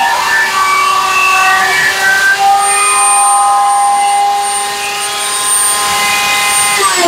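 Ryobi scroll saw running with a steady whine while its blade cuts a piece of wood. Near the end it is switched off and its pitch falls steeply as the motor winds down.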